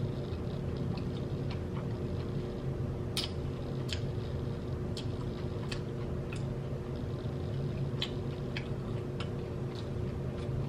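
Close-up eating: irregular sharp crunches and smacks of biting and chewing crispy food, over a steady low hum.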